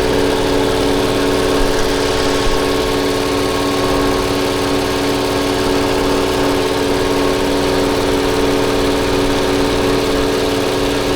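Toyota Avalon V6 engine idling steadily with a misfire on cylinder 6, which sounds strong; the fault is a clogged fuel injector.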